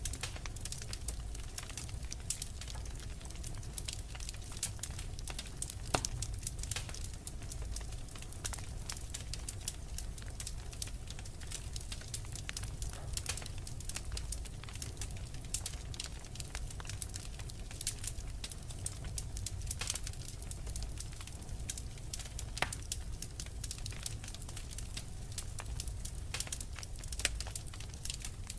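Wood fire in a fireplace crackling, with frequent small snaps and pops over a steady low rumble; one louder pop about six seconds in.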